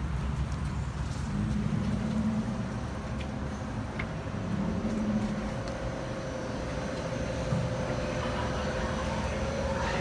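Steady low rumble of the kind heard inside a running vehicle. A steady hum comes in about two seconds in, and there is a faint click about four seconds in.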